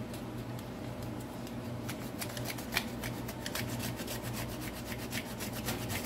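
Fresh ginger grated on a small handheld plastic grater with a metal grating plate: repeated scraping strokes, several a second, coming quicker and more regularly from about two seconds in.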